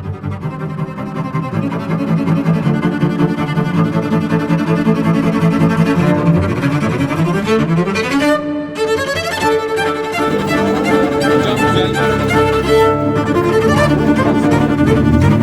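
Background music led by bowed strings such as cello and violin, with pitches sliding upward about halfway through.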